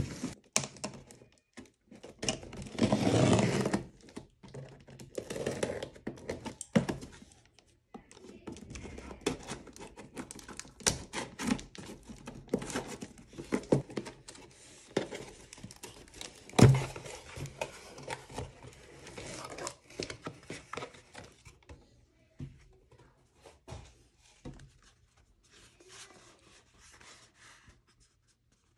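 Hands opening a cardboard shipping box: tearing, crinkling and rustling of cardboard and packing, with many knocks and one sharp thump about halfway through. The handling becomes quieter and sparser for the last several seconds, as a small cardboard box is handled.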